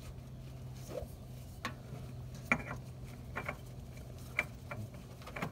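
Scattered light clicks and taps, some with a slight metallic ring, as a gloved hand works the oil filter and its mount under a Ford F-150, over a faint steady hum.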